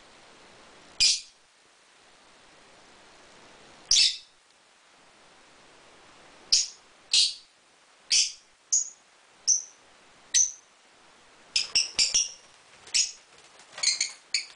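Lovebirds giving short, high-pitched calls, one every few seconds at first, then coming faster in quick clusters of two or three near the end.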